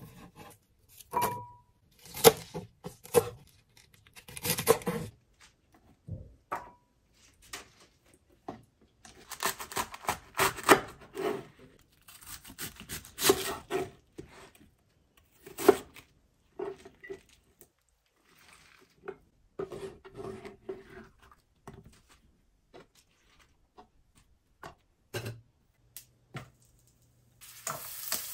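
Chef's knife slicing through bok choy and napa cabbage on a wooden cutting board: irregular runs of crisp, crunching cuts and knocks of the blade on the board, with pauses between. About a second before the end, garlic starts sizzling in oil in a frying pan.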